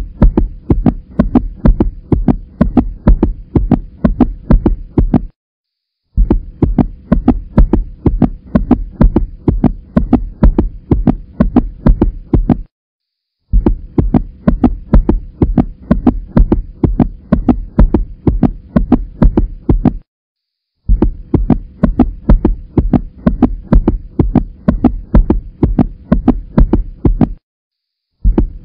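A looped soundtrack of fast, deep thumps, about four a second, over a steady hum. It breaks off for under a second roughly every six and a half seconds and starts again.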